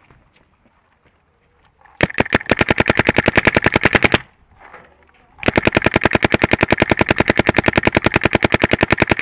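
Shocker RSX electro-pneumatic paintball marker firing in rapid strings, over a dozen shots a second. A burst of about two seconds starts about two seconds in, then after a short pause a longer burst of about four seconds.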